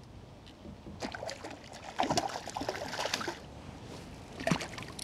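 Water splashing and trickling beside a kayak, busiest for about two seconds in the middle, with one sharp splash-like sound near the end.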